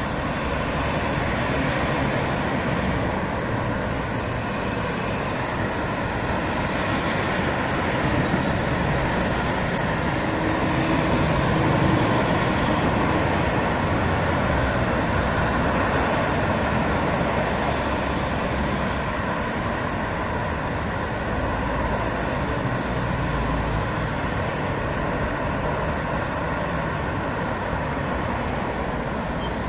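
Steady road traffic on a multi-lane road: a continuous hum of car tyres and engines, a little louder near the middle.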